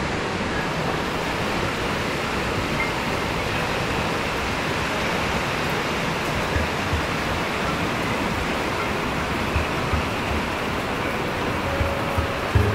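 River rapids rushing over boulders, a steady, even roar of whitewater. Faint background music comes in near the end.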